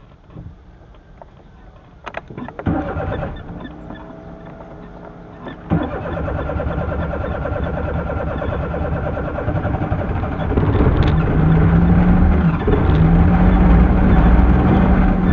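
Suzuki Mehran's small three-cylinder engine being cranked by the starter about two seconds in, then catching near six seconds and running unevenly, and revved up and held high for the last few seconds: a hard cold start on an engine that struggles to keep running.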